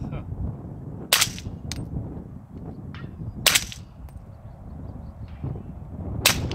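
Three suppressed rifle shots from a 16-inch AR-15 in .300 Blackout firing 220-grain subsonic rounds, roughly two and a half seconds apart, with wind buffeting the microphone throughout.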